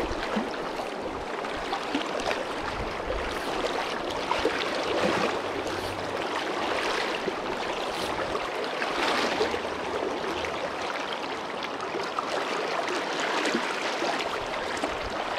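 Shallow, fast river water rushing and riffling over rocks, a steady even rush.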